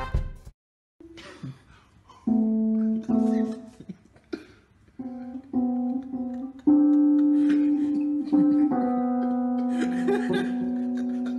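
Keys of an electronic keyboard pressed by a cat's paws: separate sustained notes sounding one after another from about two seconds in, some held and overlapping as it stands on them, with soft rustles between.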